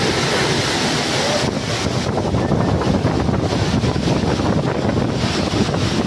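Powerful waterfall rushing loudly close by, a dense steady noise with a heavy low rumble, with wind buffeting the microphone. The hiss thins out a little about a second and a half in.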